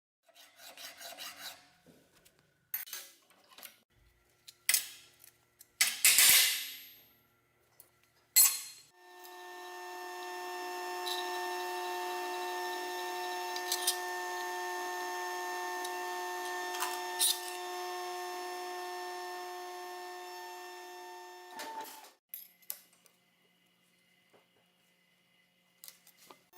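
Scattered clinks and scrapes of metal pieces being handled. Then an aluminium TIG welding arc starts and builds up over about a second into a steady electric buzz with a hiss, holds for about thirteen seconds, and cuts out.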